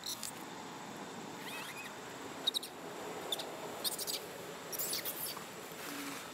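Baby macaque crying in short, high-pitched squeaks that come a few at a time, with one rising squeal about a second and a half in.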